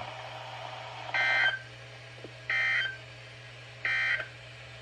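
Three short bursts of EAS/SAME digital data tones, the end-of-message (NNNN) code that closes a NOAA Weather Radio warning. Each burst is a fraction of a second of warbling two-tone data, about a second and a half apart, over a steady low hum.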